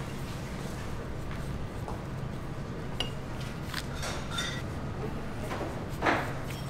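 Kitchen background: scattered clinks of dishes and utensils over a low steady hum, with a louder clatter about six seconds in.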